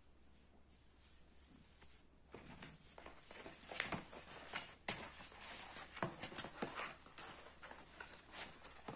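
Gimbal box and its packaging being handled: after a quiet start, rustling with several sharp clicks and taps from about two seconds in.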